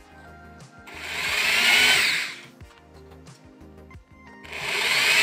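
Small handheld electric drill boring holes through thin plywood pieces, in two runs about a second and a half each, the motor's whine rising as it speeds up and falling as it stops. Background music underneath.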